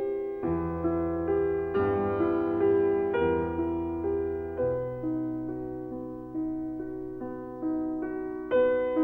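Slow, gentle piano music: a melody of struck notes that ring and fade, over held bass notes.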